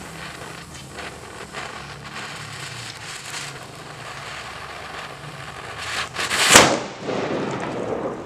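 Homemade double-strength firecracker-powder charge, jammed in a padlock's keyhole, burning with a steady crackling hiss for about six seconds. It then blows with a loud bang about six and a half seconds in, followed by a rushing hiss. The blast breaks the padlock.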